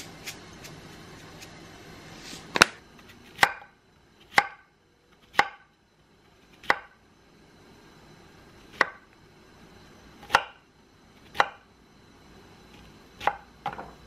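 Chef's knife chopping a zucchini on a wooden cutting board: about ten sharp, separate knocks, roughly one a second, starting a couple of seconds in. A few faint clicks come before them.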